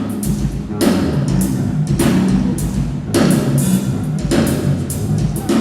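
Drum kit played without a break, with a cymbal crash about once a second over tom and bass drum strokes.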